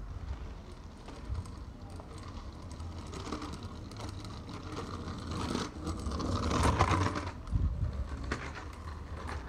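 Kick scooter's wheels rolling and scraping over asphalt, getting louder and peaking about six to seven seconds in as the rider passes close by, with scattered small clicks and a low rumble underneath.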